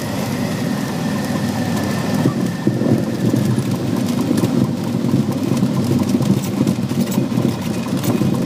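Cessna 182's piston engine running at idle, heard inside the cabin as the plane rolls out on the runway after landing: a steady low rumble with scattered knocks from the wheels on the pavement.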